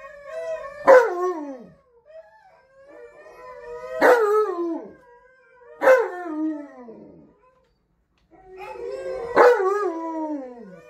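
Alaskan malamutes howling together, one in the room and others from a TV, in several overlapping long howls that waver and fall in pitch. The howls come in bouts with short pauses between, each bout starting sharply.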